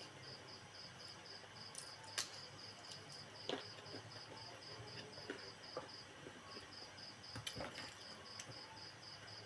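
A cricket chirping steadily in even high pulses, about four a second, with a short pause partway through. A few faint clicks and smacks from eating are heard.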